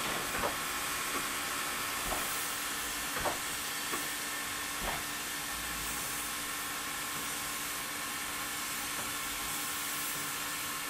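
JS-class steam locomotive standing with steam hissing steadily, with a few sharp knocks in the first five seconds.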